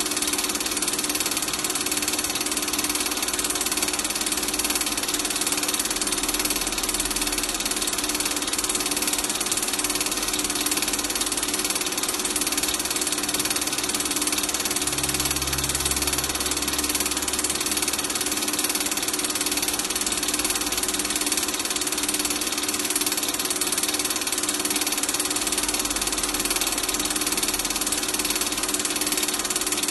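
Super 8 film projector running: a steady mechanical whir and hum over constant hiss.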